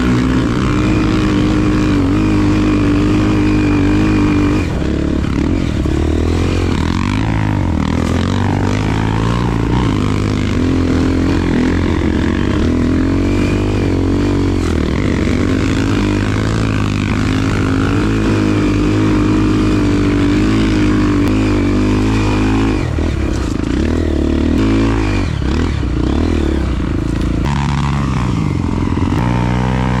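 Single-cylinder trail motorcycle engine running under load as it is ridden, its pitch rising and falling again and again with throttle and gear changes.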